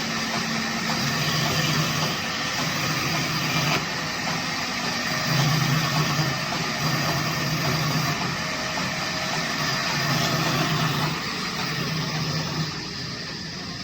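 A woodworking machine's motor running steadily, with a low hum that swells and fades in stretches of about a second, easing off near the end.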